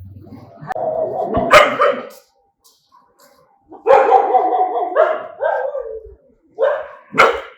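A dog barking in three bouts: one about a second in, a longer run of barks in the middle, and a short sharp burst near the end.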